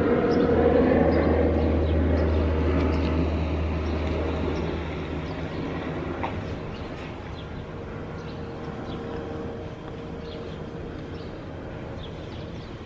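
Airplane passing overhead, its low engine drone fading steadily away.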